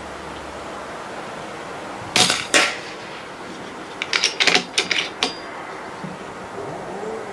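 A moderated FX Crown PCP air rifle shot, a sharp crack, followed about half a second later by a second crack, likely the pellet striking the target board. About a second and a half later comes a quick run of some six metallic clicks, fitting the rifle being cocked and reloaded.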